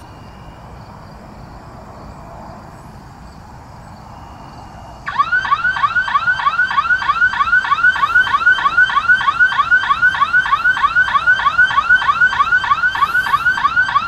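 Construction-site security camera alarm set off by the car slowing on the road: a loud electronic alarm of rapid warbling chirps in an even repeating pattern, starting suddenly about five seconds in over a low steady hum of the car.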